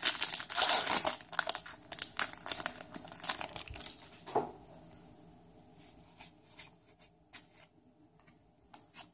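Foil Yu-Gi-Oh! booster pack wrapper crinkling and tearing open, dense for the first four seconds or so, then thinning to scattered light crinkles and clicks.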